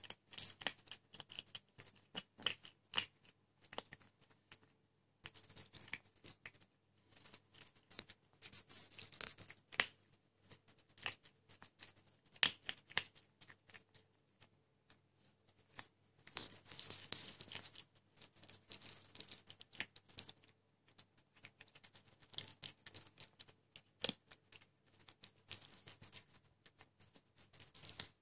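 Kitten crunching dry kibble: bouts of small crunches and clicks a second or two long, with short pauses between, and an occasional sharp click.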